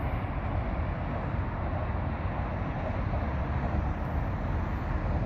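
Wind buffeting the microphone over a steady, low rumble of city traffic.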